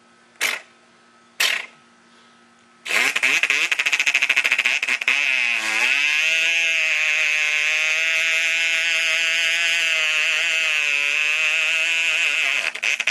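A man's vocal imitation of a Homelite XL2 chainsaw: two short bursts, then a loud sustained buzzing note that starts choppy and dips in pitch before settling into a steady high run, cutting off near the end.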